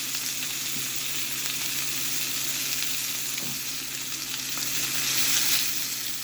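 Cornish hen pieces sizzling steadily in oil in a very hot cast iron pan over a medium-high flame, swelling slightly near the end. The steady sizzle is the sign of a good sear, with no burning.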